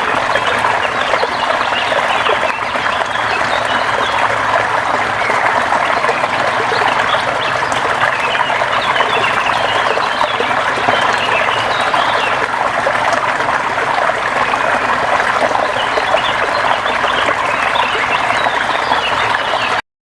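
River water flowing: a steady, dense rush and babble of moving water. It cuts off abruptly near the end.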